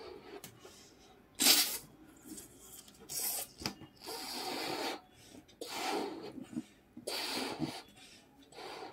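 Someone blowing up a balloon by mouth: about six breathy puffs of air, each under a second long. The one about one and a half seconds in is the loudest.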